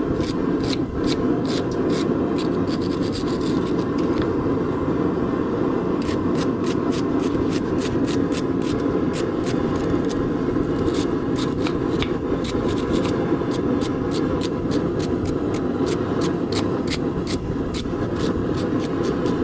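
Brush scraping loose forge scale off a freshly forged steel hook in quick repeated strokes, pausing about four seconds in and again around thirteen seconds. A steady low rushing noise runs underneath.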